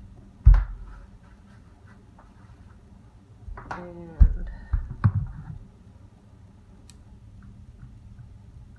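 A few dull thumps and knocks, the loudest about half a second in and about four seconds in, with a brief voice just before the second one.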